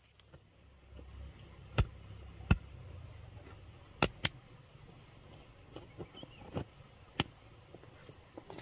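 Sharp chopping strikes on wood at an uneven pace, about five loud ones and several lighter knocks, over a faint steady high-pitched tone.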